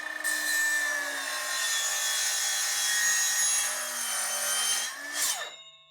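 Power chop saw cutting a length of aluminium tubing: a loud, steady, high-pitched cutting noise over the motor's whine for about five seconds. Near the end the cut finishes and the blade spins down, its ringing fading out.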